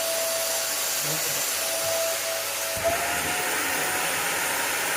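VEVOR wet vacuum cleaner running with a steady whoosh of air and a thin motor whine, whose pitch rises slightly about three seconds in.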